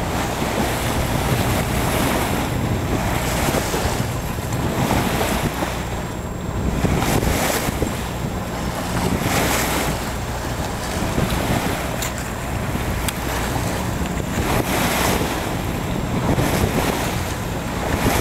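Wind buffeting the microphone over the rush of waves washing along a sailboat's hull, the water noise swelling and easing every couple of seconds.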